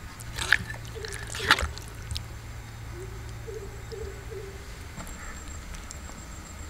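A metal ladle scooping thick curry gravy in a pan, clinking sharply against the pan twice, about half a second and a second and a half in, with wet sloshing of the gravy.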